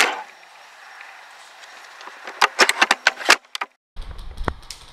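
A single sharp shot from a bolt-action spring airsoft sniper rifle, followed about two and a half seconds in by a fast run of sharp clicks and knocks. Near the end the sound cuts out briefly, then low wind rumble on the microphone comes in with one more click.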